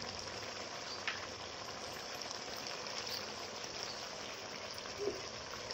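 Chicken pieces frying in an iron kadai: a steady sizzling hiss, with one small click about a second in.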